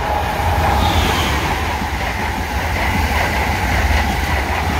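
An Amtrak Acela Express high-speed electric trainset passing close by at speed: a steady rumble of wheels on rail and a rush of air, with a faint high whine over it.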